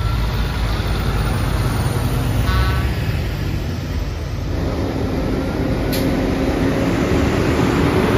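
Semi trucks' diesel engines rumbling as the trucks drive past, with one engine's note climbing slightly in pitch over the second half.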